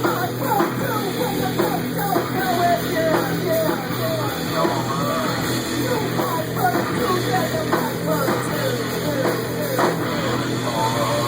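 A live rock band playing loud with singing: guitars, drums and vocals, at a steady loudness.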